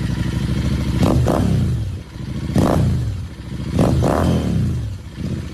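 Royal Enfield Continental GT 650's 648 cc parallel-twin engine revving through an aftermarket exhaust sold for a deep, smooth note. Three quick throttle blips, the first and last each doubled, rise sharply and drop back to idle.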